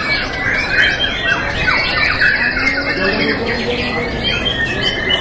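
Young white-rumped shamas (murai batu) singing in a contest, several at once, in a dense, overlapping run of whistles, trills and sharp chirps, with people's voices faintly beneath.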